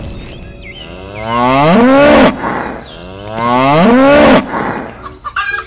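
A cow mooing twice: two long, loud calls about two seconds apart, each rising and then falling in pitch.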